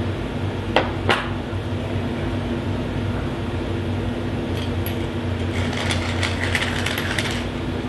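A hand pepper mill grinding for about two seconds near the end, a quick run of fine crackling clicks, over a steady low hum. Two light clicks about a second in.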